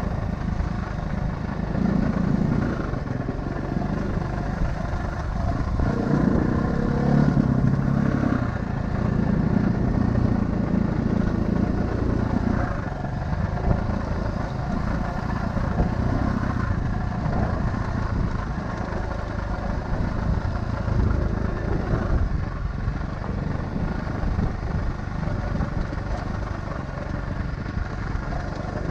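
A vehicle's engine running under way, steady with slow swells in loudness.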